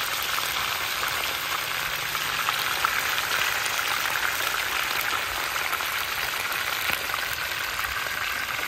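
Whole rockfish frying in hot oil in a pan: a steady sizzle with small pops throughout.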